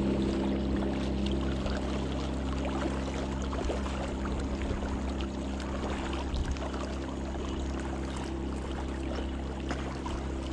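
Small waves lapping and splashing against the rocks at the lake's edge, under a steady low drone that fades out about a second and a half in and comes back near the end.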